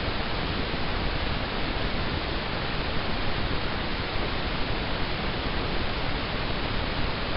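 Steady static hiss, even and unchanging, with no other sound in it.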